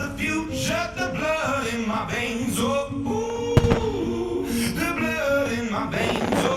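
A pop song with singing plays as the show's soundtrack, and one sharp firework bang cuts across it about three and a half seconds in.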